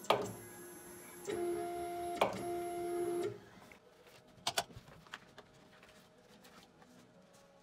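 Desktop vinyl cutter running an area test: its stepper motors whine at a steady pitch for about three seconds in straight-line moves. The whine steps louder about a second in and is broken by a click midway. It then stops, followed by a few light clicks as the vinyl sheet is handled.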